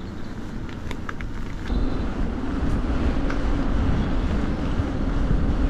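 Wind buffeting the microphone and tyre noise from a bicycle moving along a tarmac lane, with a steady low hum. It gets louder about two seconds in as the ride picks up speed.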